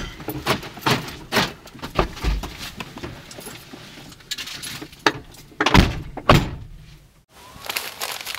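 People getting out of a parked Chevrolet truck: a run of sharp clicks and knocks from door handles and fittings, then two doors slammed shut about half a second apart, about six seconds in.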